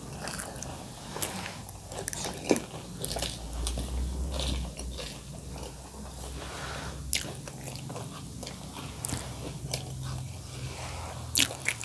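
Pani puri being eaten: crisp hollow puri shells crunching as they are bitten, with scattered small crackles and chewing.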